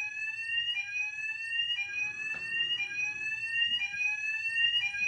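Electronic fire alarm sounding a repeating sweep: a tone slides upward for about a second, drops back, and starts again.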